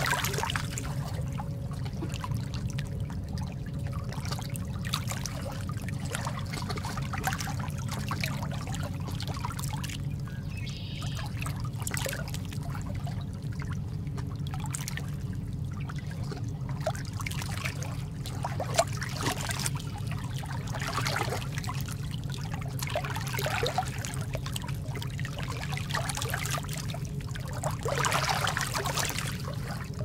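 Seawater sloshing and splashing: a steady low rush of water with many small splashes and trickles, swelling a little near the end.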